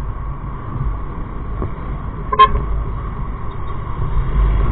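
Motorcycle riding in city traffic: steady engine and wind rumble, with one short vehicle horn toot about halfway through.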